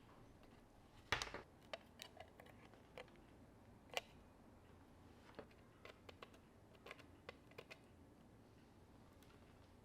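Faint, scattered small clicks and taps, about a dozen, from tools and small parts being handled during an iPhone repair. A short cluster comes about a second in, and a sharper single click about four seconds in.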